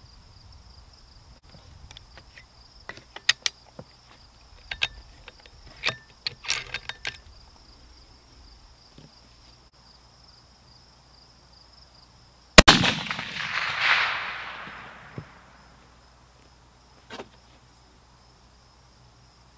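A single rifle shot from a Browning X-Bolt in .300 WSM, fired about two-thirds of the way in, its report trailing off over about three seconds. A faint steady high chirring of crickets runs underneath.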